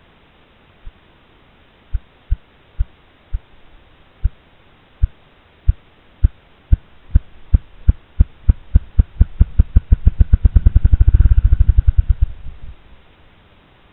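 Ruffed grouse drumming on a log: low thumps from its wingbeats, slow and spaced at first, speeding up steadily until they run together into a rapid whir that then stops.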